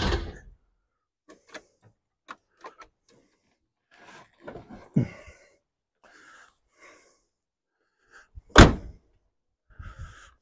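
The tail end of the 1971 Chevy Vega's engine cranking, cut off within the first half second, then a few small clicks and handling sounds. One loud thunk of a car door shutting near the end.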